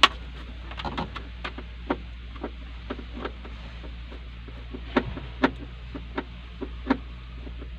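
Irregular sharp clicks and taps of a screwdriver working at a truck's plastic dashboard trim panel, a sharp one at the start and a few louder ones about five to seven seconds in, over a steady low hum.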